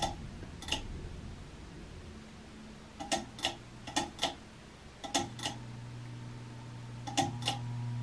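Pull-chain speed switch of a Casablanca Delta II ceiling fan being pulled through its positions: five pulls, each a pair of sharp clicks. Under the clicks is the motor's hum as it runs at minimum on a solid-state speed control. The hum weakens after the first pull and comes back strongly about five seconds in.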